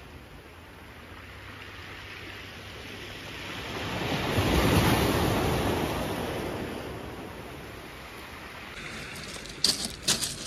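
Surf breaking on a shingle beach, with one wave swelling to a peak about halfway through and slowly washing away, under a light wind. Near the end come a few sharp knocks and clicks as the camera is handled.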